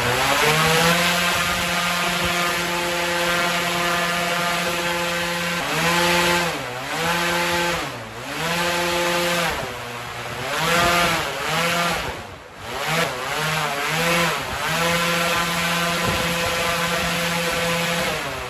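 Electric hovercraft's ducted propeller fan running at full throttle, a steady pitched hum. In the middle stretch its pitch dips and comes back up several times as the speed sags and recovers, then it holds steady again near the end.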